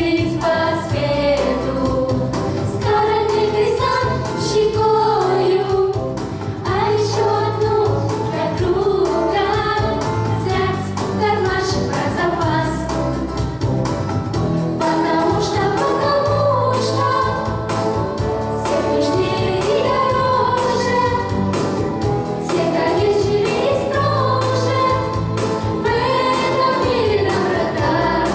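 A group of voices singing a song together over an instrumental backing with a steady bass line.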